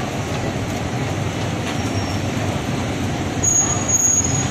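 Steady low rumbling din of a busy street-food shop. About three and a half seconds in, a brief thin high-pitched squeal sounds for about a second.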